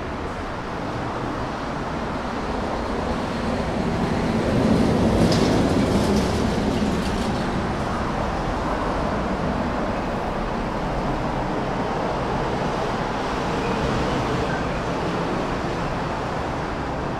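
City street traffic noise: a steady rush of passing vehicles, with a louder vehicle going by about four to seven seconds in.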